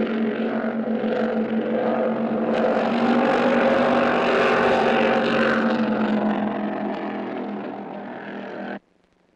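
Engines of the vintage racing boat Miss America IX running steadily under way, a strong low hum with a rougher upper layer. The sound fades over the last few seconds and then cuts off abruptly near the end.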